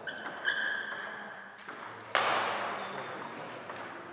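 Table tennis rally: the light clicks of a celluloid ping-pong ball on bats and table, with a long high squeak early on and one loud sharp hit about two seconds in that rings on in the hall.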